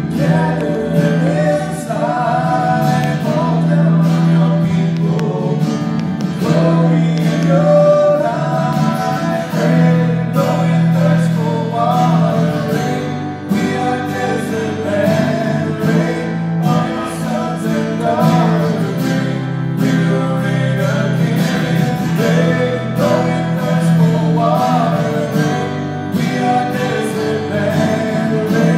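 Live worship band playing a song: strummed acoustic guitars and keyboard under sung vocals, with a steady low note held beneath.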